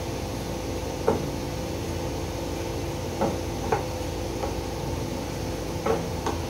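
Wooden spatula stirring grated dry coconut as it dry-roasts in a pan, knocking against the pan about six times at uneven intervals, over a steady hum.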